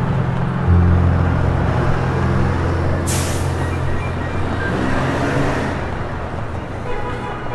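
Background music with long, held deep bass notes and a rushing, hiss-like swell that comes in about three seconds in and fades out a few seconds later.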